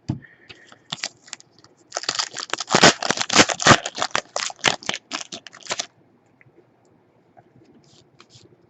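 A trading-card pack wrapper being torn open and crinkled: a dense crackling lasting about four seconds, starting about two seconds in, with a few scattered clicks before it.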